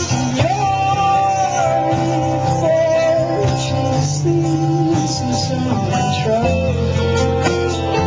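Live band playing: electric and acoustic guitars over a drum kit with cymbal hits, and a sliding, wavering lead melody on top.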